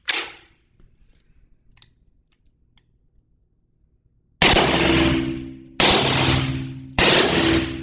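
Suppressed vz. 61 Skorpion .32 ACP submachine gun with a SilencerCo Omega 9K can, fired three times a bit over a second apart, starting about halfway in. Each report rings on and dies away slowly in the hard concrete room.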